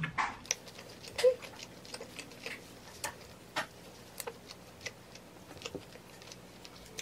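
Metal fork clinking and scraping on a ceramic plate while eating: irregular light clicks, a few with a short ring, the loudest about a second in.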